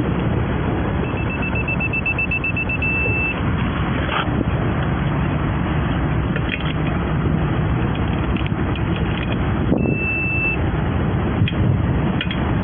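Steady roadside traffic and outdoor noise, with a quick run of short high beeps about a second in that ends in a longer beep, and another brief steady beep near the end.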